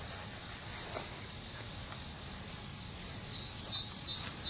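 Steady, high-pitched chorus of summer insects, with a few faint short chirps near the end.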